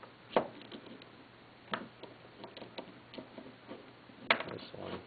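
A handful of sharp metal clinks and ticks as steel bolts are handled and set into an Atlas 9-inch lathe's spindle bearing cap on a workbench. The loudest clink comes about four seconds in.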